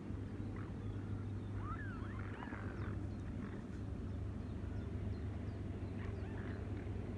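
A large flock of swans on the river calling: a cluster of short rising and falling calls about two seconds in, and a few more near the end, over a steady low rumble.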